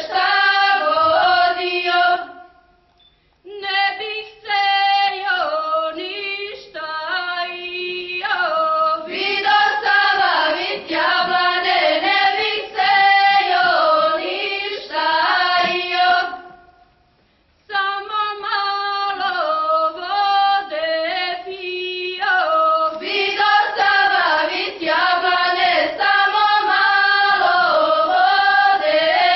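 Small group of women singing a traditional Montenegrin folk song unaccompanied, in long phrases broken by two short pauses, about three seconds in and again about halfway through.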